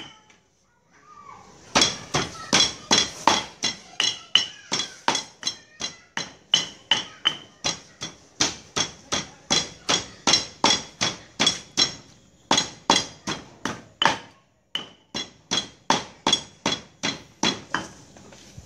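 A stone pestle pounds in a stone mortar at about three sharp, ringing knocks a second, crushing lemongrass, garlic, galangal and turmeric into a curry paste. The pounding starts about two seconds in and pauses briefly twice near the end.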